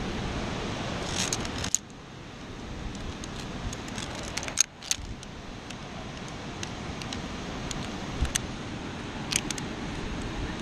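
Via ferrata carabiner and lanyard clinking against the steel safety cable and its anchor clamp, a scattering of sharp metallic clicks in small clusters over a steady rushing background.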